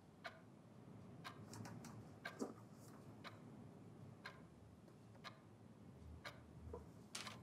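Clock ticking faintly and steadily, about once a second, with a few lighter clicks in between.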